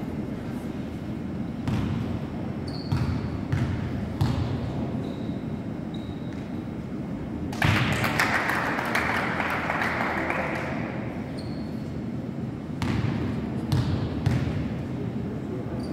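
A basketball bouncing on a gym floor, a handful of separate bounces, as a player dribbles before a free throw. About eight seconds in there is a louder burst of noise lasting a couple of seconds.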